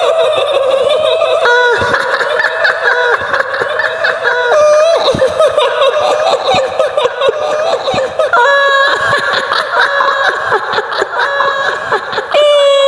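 High-pitched, shrill woman's cackling laughter, the kuntilanak ghost laugh of Indonesian horror sound effects, going on without pause in wavering, repeated notes.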